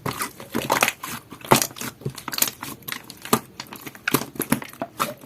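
Jelly-textured slime being squeezed and pressed by hand, giving irregular sharp clicks and pops, several a second.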